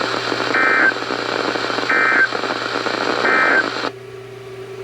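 NOAA Weather Radio Emergency Alert System end-of-message: three short bursts of SAME data tones, each a fraction of a second long and about a second and a half apart, over radio static. They signal that the warning broadcast is over. The static cuts off sharply near the end.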